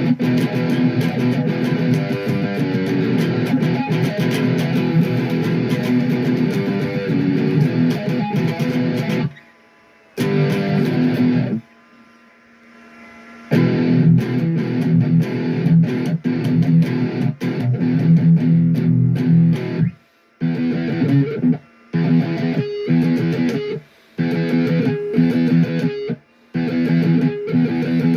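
Electric guitar played through an amplifier with the amp's own distortion on, strumming sustained chords with several short stops and a longer pause about ten seconds in.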